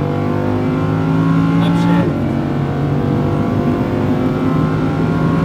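Lamborghini Huracán's V10 engine pulling hard under full acceleration on a straight, heard from inside the cabin. The engine note breaks briefly about two seconds in, as at an upshift, then carries on pulling.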